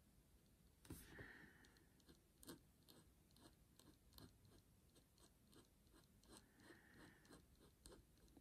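Near silence with faint, irregular small ticks and scratches, several a second: the fine bullet tip of a Posca PC-1M paint pen dabbing and stroking on a stone as it colours in.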